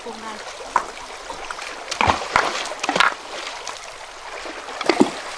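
Shallow stream water running over rocks, with several sharp knocks and splashes as river stones are lifted and set down against other stones to build a stone fish trap.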